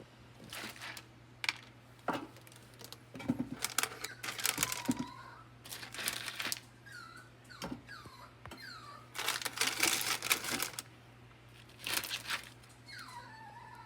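Irregular crinkling, rustling and light clicks from handling food packaging and toppings, in scattered bursts, with a few short squeaks.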